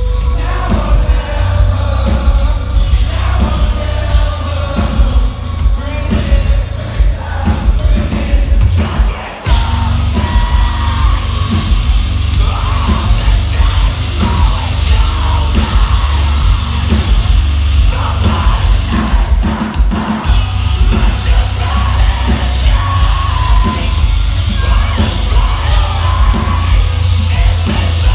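Metalcore band playing live and loud: electric guitars and drums driving under a vocalist who yells and sings into the microphone. The music breaks off for a moment about nine seconds in, then crashes back in.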